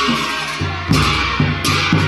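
Traditional Kinnauri folk band: long straight brass horns (karnal) sound held, blaring notes over a large drum. The drum is beaten in a steady rhythm of about four strokes a second from about half a second in.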